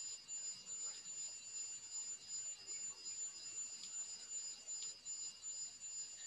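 Several steady high-pitched electronic tones, the highest ones breaking up in short flickers, over faint room tone, with a couple of faint clicks about four and five seconds in.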